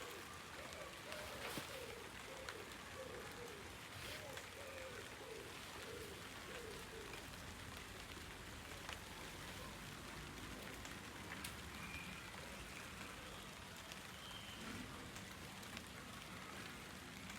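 Steady rain falling, with scattered individual drops tapping close by. During the first seven seconds a row of short, repeated low notes sounds about twice a second.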